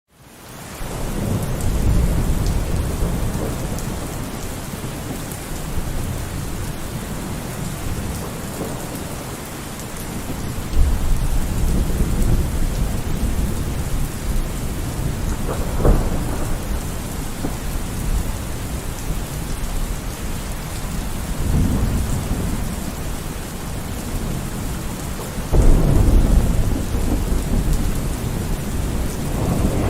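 Steady heavy rain with thunder rolling in again and again: low rumbles swell and fade every few seconds, with sharper claps about eleven seconds in and near the end.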